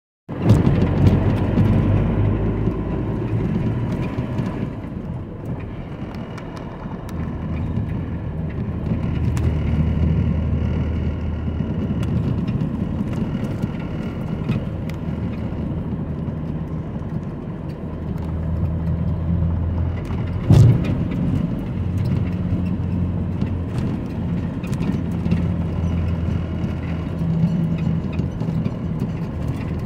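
Engine and tyre noise inside a vehicle's cabin as it drives slowly over rough asphalt and then brick paving. The engine note swells and eases, small knocks and rattles are scattered through it, and there is one sharper thump about two-thirds of the way through.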